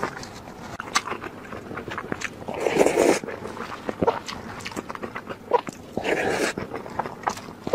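Close-up eating sounds from a bowl of spicy noodles: wet smacks and clicks of chewing. A longer noisy blow into a tissue comes about three seconds in, and a slurp of noodles about six seconds in.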